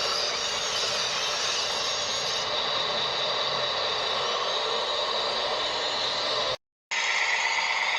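Small electric motors and plastic gearboxes of remote-control construction models whining and grinding steadily. The sound cuts out for a moment about six and a half seconds in and resumes.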